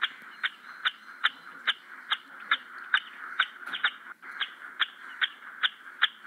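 A brood of domestic chicks peeping: short, high peeps repeat evenly, between two and three a second, over the steady chirping of the rest of the brood.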